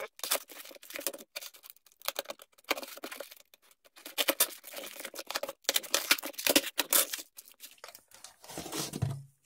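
Small knife slitting the packing tape and cardboard of a taped parcel, then the cardboard being ripped and pulled open, with crinkling plastic tape: an uneven run of scrapes, rips and crackles.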